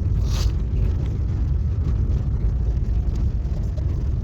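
Car driving slowly over a snowy road, heard from inside the cabin: a steady low rumble of engine and tyres, with a brief hiss about half a second in.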